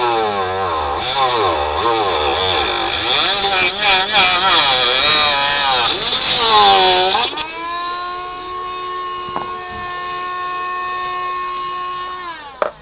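Milling machine cutting into a ukulele body, its whine wavering up and down as the load on the cutter changes. About seven seconds in it runs free at a steady pitch, then winds down near the end.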